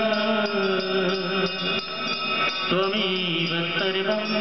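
Hindu devotional mantra chanting sung over music, a sustained melodic voice line with a steady high ticking beat running through it.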